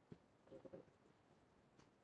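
Near silence: faint room tone with a few soft clicks, one just after the start, a short cluster about half a second in and one more near the end.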